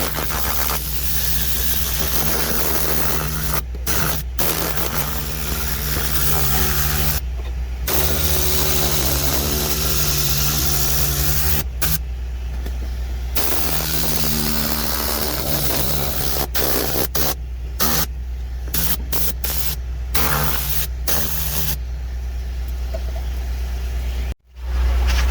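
Compressed-air cleaning gun (Vortex-type) blowing in repeated trigger bursts, a loud rushing hiss that cuts off and restarts several times over the steady hum of a running motor.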